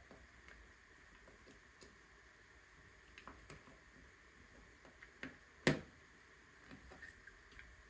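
Scattered small plastic clicks and taps of LEGO pieces being handled and pressed together, the loudest a sharp click a little past halfway, over a faint steady hiss.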